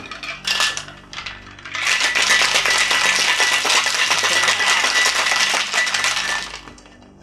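Crushed ice rattling hard inside a two-piece metal cocktail shaker (tin on tin) as a margarita is shaken, for about five seconds, then stopping. A few clicks and knocks come first, as the tins are fitted together.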